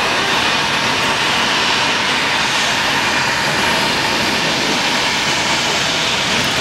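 Jet airliner engines running at high power on a wet runway: a loud, steady rushing noise that holds level throughout.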